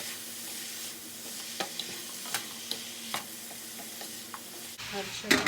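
Chopped beets and carrots sizzling steadily in hot oil in a pot, with a few sharp clicks of a stirring utensil against the pot.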